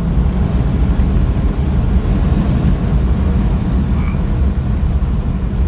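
Triple-turbo 2011 BMW 335d's inline-six diesel engine and exhaust pulling under load in 5th gear, a steady low rumble heard inside the cabin.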